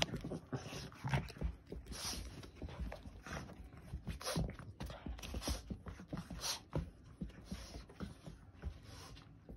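A puppy playing with a toy close by: irregular scuffles, rustles and soft knocks of paws and toy on carpet, in quick succession.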